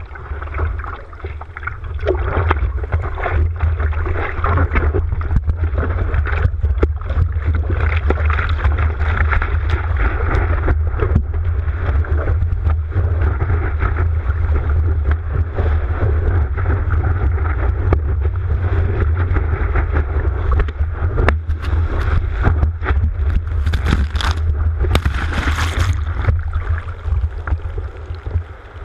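Sea water rushing and splashing against a surfboard, heard muffled through a GoPro Hero 3's waterproof housing over a deep, constant rumble. Sharper, brighter splashes come near the end as whitewater washes over the board.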